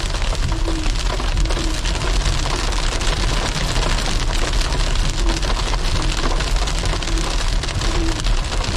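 Small hail pellets, about the size of BBs, pelting the car's windshield and body as a dense, steady patter, heard from inside the cabin over a low road rumble.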